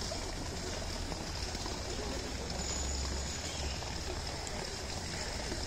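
Water from a spout pouring steadily into a pool, an even splashing rush.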